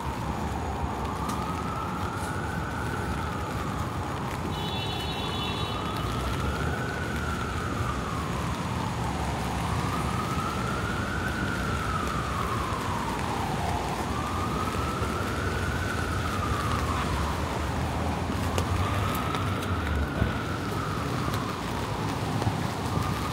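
Emergency vehicle siren in a slow wail, its pitch rising and falling about every four seconds, over steady traffic and rain noise on a wet city street.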